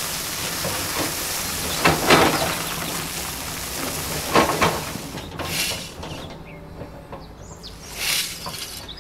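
Sand and soil sliding and pouring out of a tipping toy trailer bed, a steady hiss with heavier surges about two and four and a half seconds in. It dies down after about five seconds, leaving a couple of short scraping sounds as the last soil is pushed off the bed.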